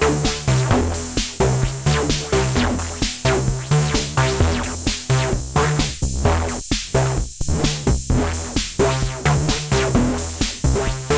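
Erica Synths Bassline, a monophonic analogue bass synthesizer, playing a sequenced bass line of short stepping notes over a steady drum machine beat of about two hits a second. The pattern thins out with short gaps for about a second near the middle.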